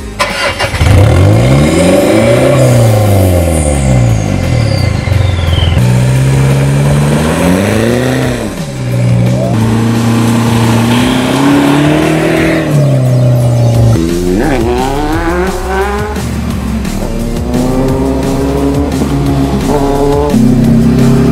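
Vehicle engines running through sport exhausts, one after another, revving up and down over and over. About two thirds of the way through, the pitch climbs quickly several times in a row.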